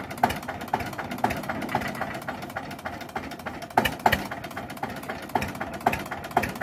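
Old Eicher tractor's diesel engine running under a heavily loaded sugarcane trolley, with a sharp knock about twice a second over the steady engine sound.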